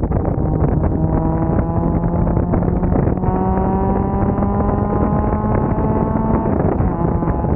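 Straight-piped Nissan SR20 VVL four-cylinder car engine pulling under acceleration, its pitch climbing through one gear, shifting at about three seconds in, and climbing again until near the end. Wind buffets the microphone.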